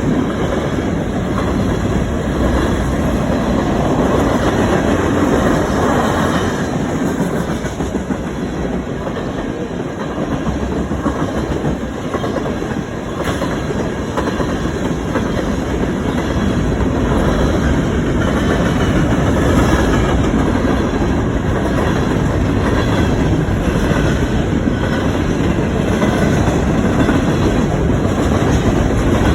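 Freight cars of a CN mixed freight train rolling past, their wheels clattering steadily over the rail joints.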